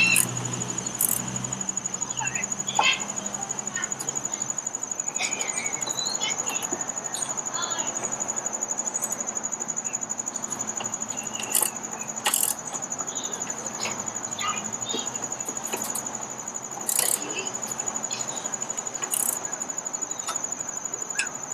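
Steady high-pitched pulsing insect trill, with scattered short clicks and clinks of a wrench tightening the nut on a Jeep hood latch.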